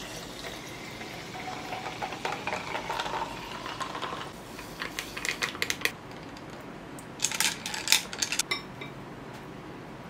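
Sparkling water poured into a tall glass, the pitch of the filling rising as it fills, then a metal straw stirring the fizzy drink and clinking against the glass in two quick runs.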